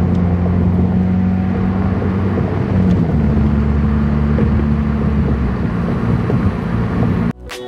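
Car engine and road noise inside the cabin while driving, a steady low hum whose engine note shifts pitch about three seconds in and again a couple of seconds later. It cuts off suddenly near the end.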